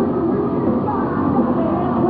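Rock band playing live: electric guitars, bass and drums together in a steady, dense wall of sound.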